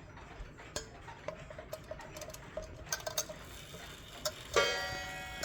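Waterbury clock's movement clicking faintly as its hands are turned forward, then the hammer strikes the gong once about four and a half seconds in, ringing on as the clock begins striking the hour.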